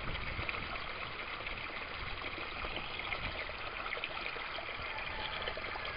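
Water running steadily in an aquaponics U-siphon rig: pump inflow pours into the barrel while the siphon drains it. The siphon seems to have settled into equilibrium instead of breaking and burping.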